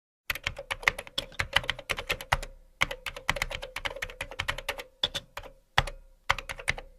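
Quick, irregular sharp clicks, several a second, in runs with short breaks, over a faint steady hum.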